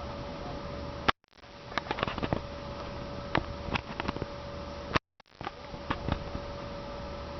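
Steady background noise with a faint constant hum and scattered light clicks. The sound cuts out twice, briefly, and each time fades back in.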